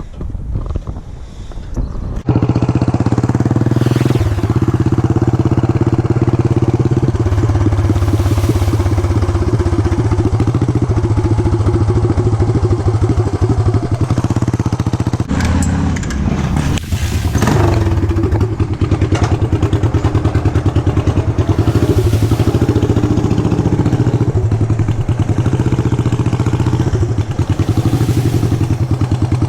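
Yamaha SR400's air-cooled single-cylinder engine running on the move. It cuts in loudly about two seconds in, after a stretch of wind noise. About halfway through, the engine note drops and then climbs again.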